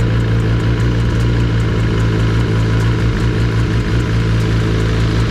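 Kawasaki ZX-10RR inline-four engine idling steadily through a full Graves titanium exhaust, with a light, fast ticking of about four or five ticks a second over the exhaust note.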